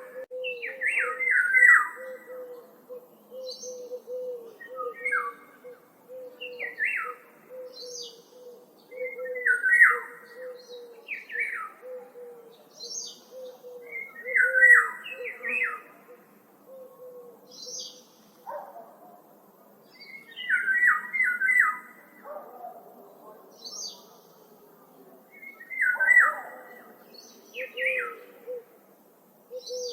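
Wild birds singing and calling in woodland: short chirping phrases come every second or two, with thin high notes above them. A low, steady, wavering note runs under the first half and fades out a little past halfway.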